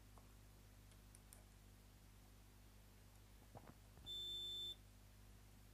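Digital multimeter's continuity buzzer giving one steady high beep, a little over half a second long, about four seconds in, as the test probes touch the pins of a motherboard MOSFET being checked for a short. Just before it come a few faint clicks of the probe tips; otherwise near silence.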